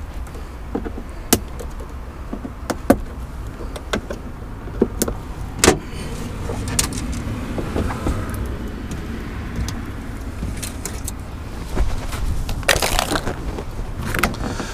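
Scattered clicks, taps and knocks of plastic and metal parts being handled in a hybrid battery compartment, with a brief rustle near the end, over a steady low rumble.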